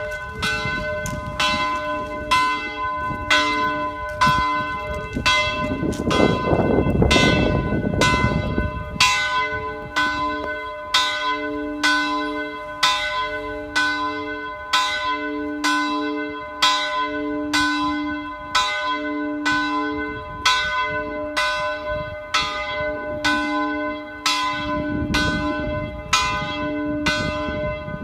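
Church bell ringing in a steady, even rhythm of about three strokes every two seconds, each stroke ringing on into the next.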